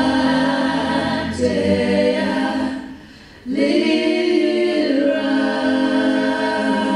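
A small vocal group singing in harmony with no instruments, holding long chords. The singing breaks off briefly a little before halfway, then comes back in.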